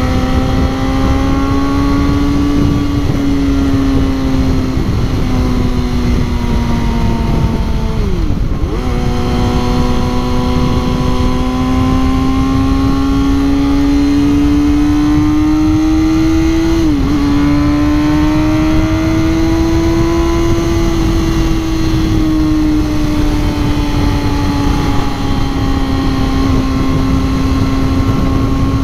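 Sport motorcycle engine running at cruising speed, its pitch drifting slowly up and down, with wind rushing over the microphone. Twice, about eight and seventeen seconds in, the engine note dips sharply for a moment and comes straight back.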